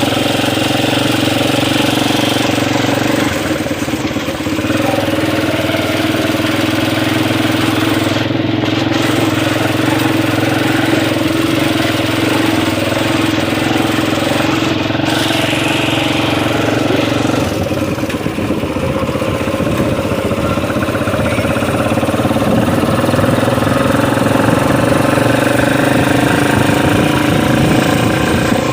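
Motorcycle engine running steadily at idle; its sound changes about two-thirds of the way through.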